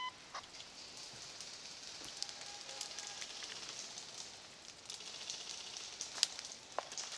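Faint rustling and crackling of dry leaf litter, twigs and undergrowth as a person moves through woodland, with a few small twig snaps over a steady soft hiss.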